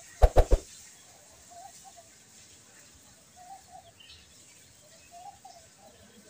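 Three quick sharp clicks near the start, then a dove cooing softly in the background, short paired coos repeating every second or two.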